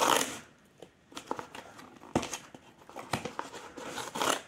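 Ration pack packaging being worked open by hand: irregular crinkling and tearing rustles with a few sharp knocks, the loudest rustles near the start and near the end.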